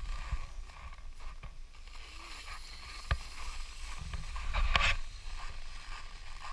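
Skis sliding over packed snow, with wind rushing over the camera's microphone; a louder swish comes about four and a half seconds in, and a single sharp tick a little after three seconds.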